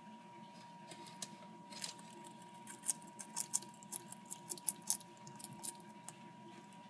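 Bearded dragon biting and chewing a cockroach: a run of crisp crunching clicks, thickest between about three and five seconds in.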